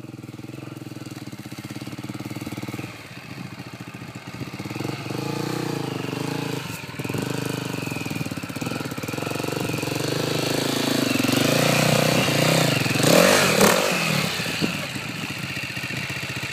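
Enduro dirt bike engine revving unevenly under throttle as it climbs a steep rocky slope. It grows louder as the bike comes closer and is loudest about twelve to fourteen seconds in.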